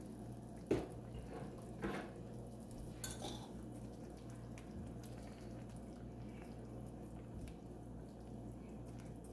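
Cookware being handled on the stove: a few light knocks and clinks of metal utensils against a pot in the first few seconds, over a low steady hum.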